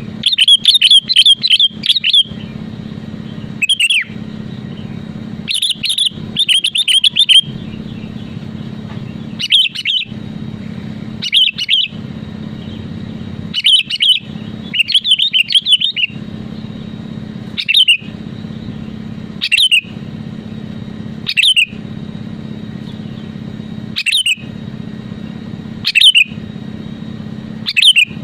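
Sooty-headed bulbul (kutilang) calling over and over: short clear notes that drop in pitch, coming about every two seconds, with a few quicker runs of several notes in a row. A steady low hum sits underneath between the calls.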